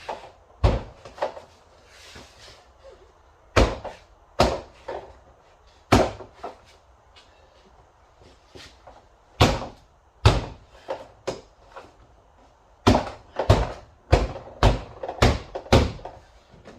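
Plastic door trim panel of a 2011 GMC Terrain being pushed and knocked into place: over a dozen sharp snaps and thumps at uneven intervals, some in quick runs, as the panel's retaining clips are driven home into the door.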